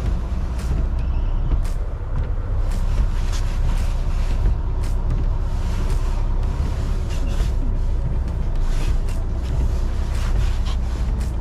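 Semi truck's diesel engine running low and steady at low speed inside the cab, with scattered short clicks and knocks.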